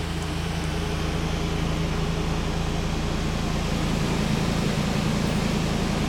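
Dometic rooftop air conditioner (heat pump) running on cooling: a steady fan-and-compressor hum that grows a little louder toward the middle.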